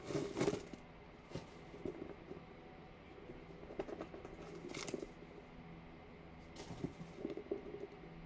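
Faint rustling and handling of a new leather handbag as its paper stuffing is taken out: a few short rustles and scuffs, the loudest right at the start.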